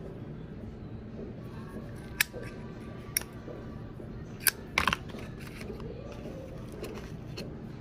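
Sharp metallic clicks, four or five between about two and five seconds in, the last two close together: Zippo lighter lids being flipped open and snapped shut. A low steady hum runs underneath.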